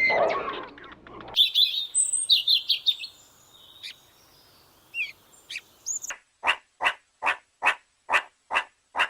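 High-pitched animal chirping: a quick flurry of chirps, then from about six seconds in a steady series of short, evenly spaced calls, about two and a half a second.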